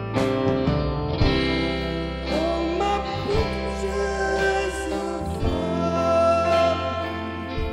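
Live band playing: electric guitars and drums, with a man's voice singing over them from about two seconds in.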